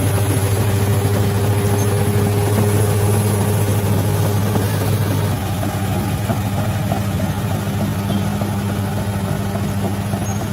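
Bulldozer's diesel engine running steadily with a deep, even hum, easing slightly about five seconds in.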